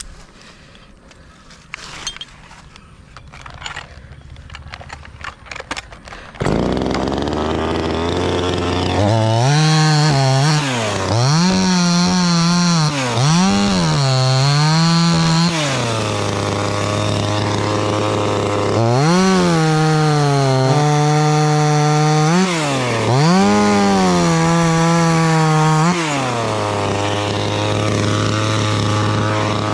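After a few light clicks and knocks, a two-stroke chainsaw starts up about six seconds in and idles. It is then revved up and down several times in two spells, dropping back to idle between them and at the end.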